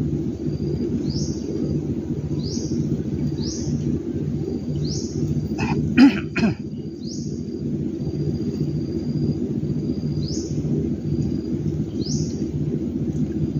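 A man coughs twice in quick succession about six seconds in. Underneath runs a steady low pulsing drone, with a high chirp repeating about every second or so.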